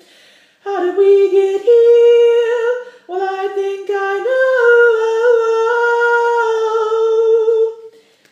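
A woman singing unaccompanied in long, held notes at the top of her range, with short breaks about half a second and three seconds in.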